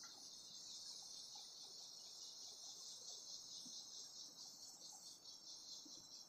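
Near silence, with a faint, steady, high-pitched insect chirring.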